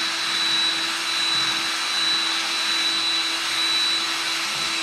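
Electric drill running steadily at speed, boring a small hole through metal for a pulse-pump line fitting, with a high steady whine over the motor noise.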